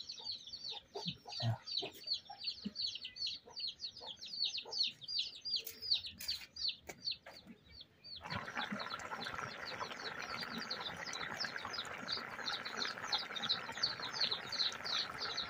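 Birds chirping: a rapid, unbroken run of short, high, falling chirps, several a second. About halfway through, a steady hiss comes in underneath.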